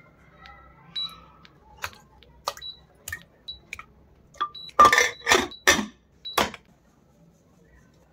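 Water poured into a metal cooking pot, then a run of clinks and clanks as raw chicken lollipop pieces are knocked into the pot. There are four loud knocks with a short ring, one after another between about five and six and a half seconds in.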